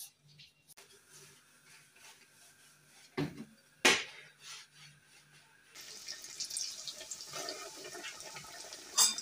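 Yeast doughnuts frying in a pot of hot oil, sizzling and crackling, from about six seconds in, with a louder pop near the end. Before that, two sharp knocks come under a second apart.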